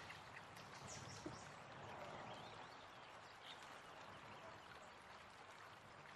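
Near silence: faint background hiss with a tiny click about a second in.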